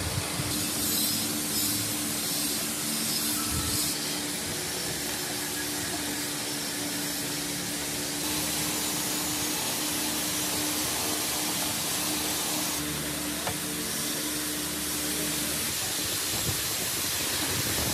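Electric pedestal fan running: a steady hiss of moving air over a steady motor hum, the hum stopping near the end.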